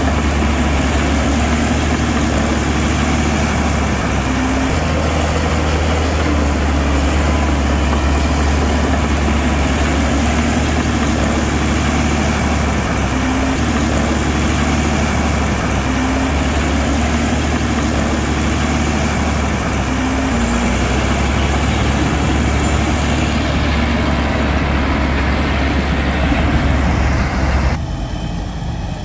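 Heavy diesel engine of earthmoving machinery running steadily with a deep low rumble and a faint wavering high whine above it; the sound drops off abruptly near the end.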